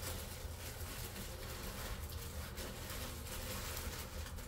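Faint rustling of tissue paper being pulled from a gift box, over a steady low background hum.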